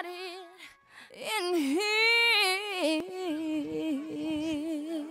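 Music: a solo voice singing long, wavering held notes, with no beat behind it.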